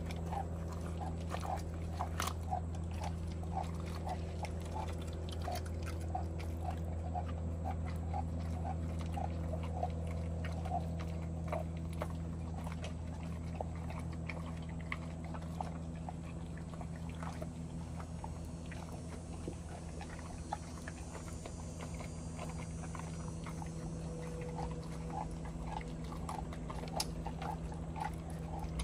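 An American bully dog chewing and crunching a raw chicken leg quarter, bones and all, with short repeated clicks and crunches. A steady low hum runs underneath.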